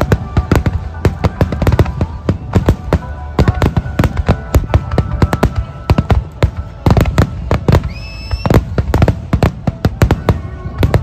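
Barrage of aerial firework shells bursting in quick succession, several sharp booms and cracks a second with no let-up. A brief high whistle rises and holds about eight seconds in.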